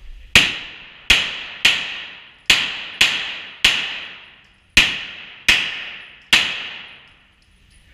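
Nine pistol shots in about six seconds at an uneven pace, each with a long echoing tail off the concrete walls of an indoor range.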